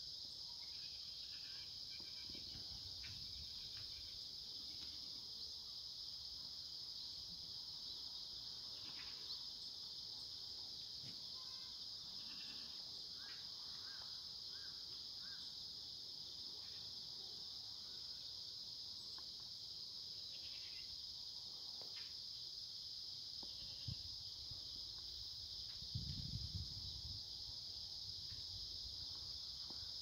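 Steady chorus of insects, one continuous high-pitched trill, with faint scattered chirps and a brief low bump near the end.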